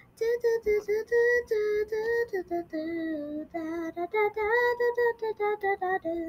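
A young girl singing a wordless tune to herself in a high voice: a run of short notes, each held steady, with small jumps up and down in pitch.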